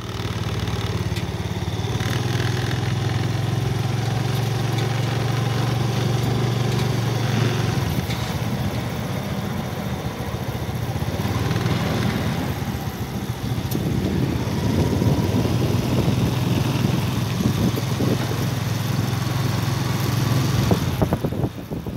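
Steady low rumble and road noise from riding along a paved road.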